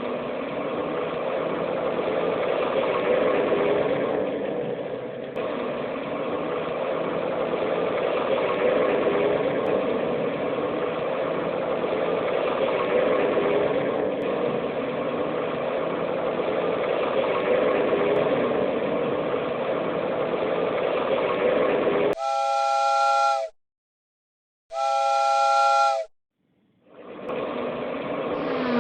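Cartoon train sound effects: a steady steam-like hiss of a running train, then two whistle blasts about 22 and 25 seconds in, before the hiss resumes near the end.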